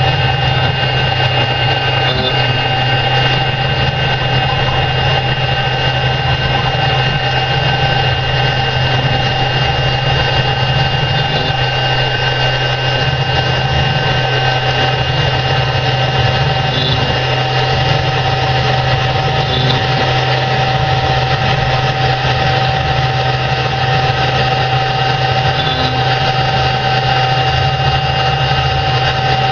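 JNEM-800 CNC stone engraving machine running steadily: a low hum with a constant high whine over a noisy rush, unchanging throughout.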